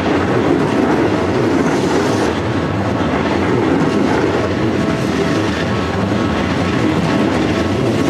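Chiba New Town Railway 9100-series electric train passing close by, its cars rolling past with a steady rumble of wheels on the rails.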